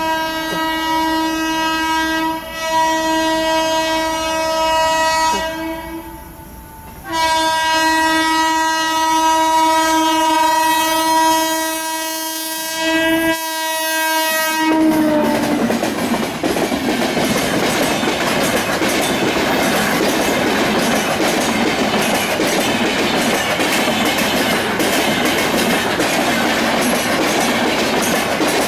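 WAP-4 electric locomotive sounding its horn in long, steady blasts with short breaks, the last blast sliding down in pitch as it stops about fifteen seconds in. The LHB coaches of the express then roll past close by, with a steady noise of wheels on the rails.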